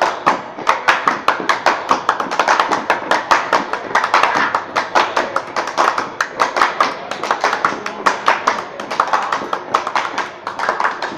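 Body percussion by a group: a fast, steady rhythm of hand claps and slaps on chests and bodies, many sharp strokes a second.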